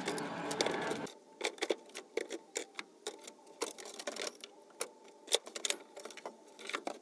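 Quick, irregular clicks and light knocks, several a second, from hand work taking a shelf out of a van; a denser noise stops abruptly about a second in.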